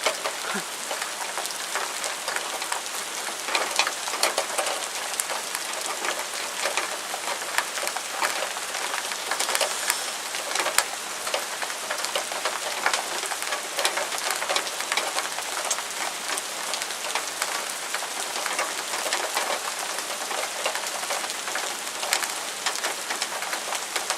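Heavy rain pouring steadily onto hard surfaces, a dense hiss studded with many sharp individual drop strikes.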